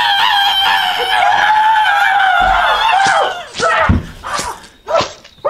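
A person screaming: one long, high scream held for about three seconds, then a few short cries.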